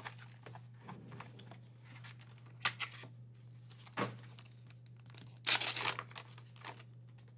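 Packaging crinkling and tearing as a slabbed trading card is drawn out of a foil bag, in a few short bursts, the loudest and longest about five and a half seconds in. A steady low hum runs underneath.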